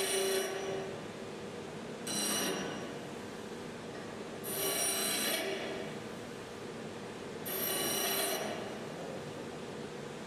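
Pedestal bench grinder running steadily while a small metal workpiece is pressed to the wheel four times, each a burst of grinding hiss and whine lasting about a second.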